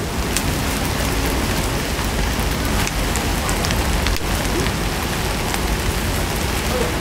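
Food sizzling steadily as it fries in a hot pan, with a few sharp clicks of utensils.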